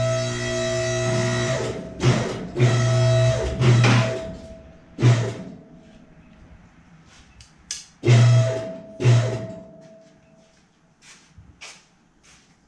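Music with drums: a held chord, then several heavy bass-and-drum hits that die away after about nine seconds, leaving only faint clicks.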